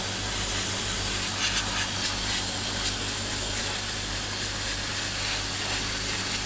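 Airbrush spraying V-Color paint in a steady hiss, with a steady low hum beneath.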